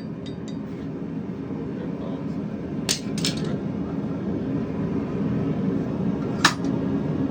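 Steady low roar of a forge with three sharp metallic clinks of blacksmith's tools: two close together about three seconds in, and a louder single one near the end.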